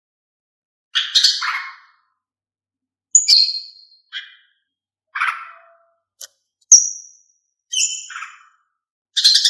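Female cucak ijo (green leafbird) giving a string of short, sharp chirping calls, about seven brief phrases with gaps of silence between them, some sliding downward in pitch.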